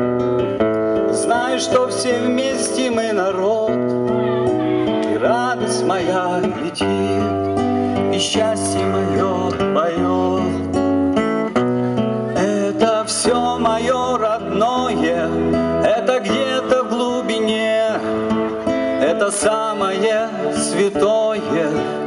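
A man singing a song to his own acoustic guitar, amplified through stage speakers.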